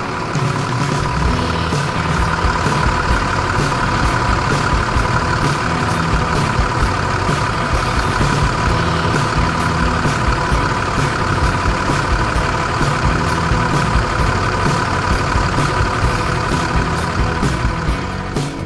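Tractor engine running steadily, a low pulsing engine note with a steady higher hum over it.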